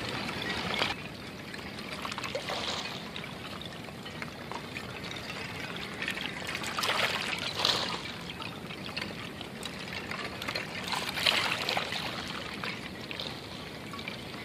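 Small waves washing in over a stony shoreline and floating pieces of thin ice, the ice shards knocking against each other and the rounded rocks with a tinkling, musical clinking. The wash comes in several louder surges.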